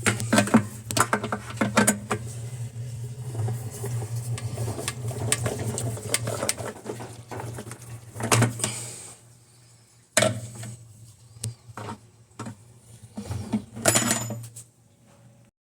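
Irregular clinks, clicks and knocks of hard parts being handled while a washing machine's agitator is fitted, with a steady low hum underneath that stops about ten seconds in.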